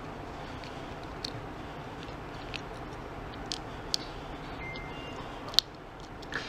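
Sparse sharp plastic clicks and snaps as the clip-together plastic case of a keychain personal alarm is pried open by hand to reach its button-cell batteries, the loudest snap near the end, over a steady low hiss.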